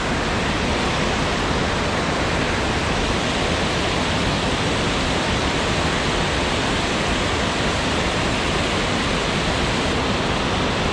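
Water rushing steadily over a small river weir, a constant even rush of white water.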